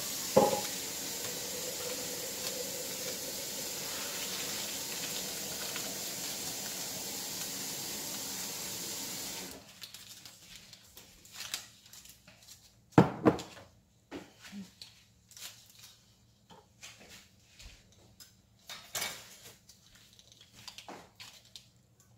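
Water running steadily from a tap for about nine seconds, then cut off sharply. After that comes the light crinkling and crackling of aluminium foil being pressed around a ramekin, with a loud knock about 13 s in as a white enamel pitcher is set down on the counter.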